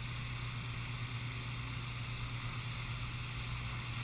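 Handheld recorder playing back through its small speaker: a steady electronic hiss over a constant low hum, with no voice in it.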